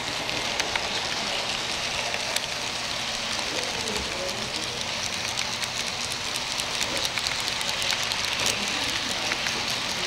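HO-scale model freight train rolling past close by: a steady rush of wheel-on-rail noise peppered with many small clicks from the wheels on the track.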